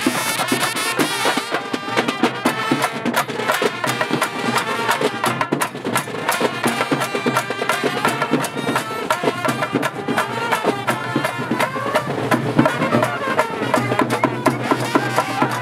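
Live brass-and-drum band: trumpets playing a melody over steady, driving drumming on barrel drums, with the music going on throughout.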